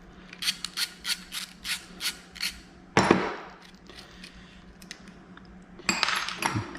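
Hand tools working on a car starter's mounting hardware: a quick run of regular metallic clicks, about four a second, then a single louder knock, and a scraping rustle near the end.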